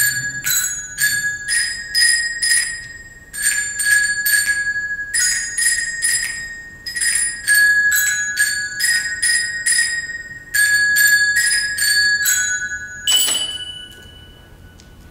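A group of children's glockenspiels struck with mallets in unison, playing a simple melody of bright ringing notes. The melody ends about 13 seconds in on one last note that rings out and fades.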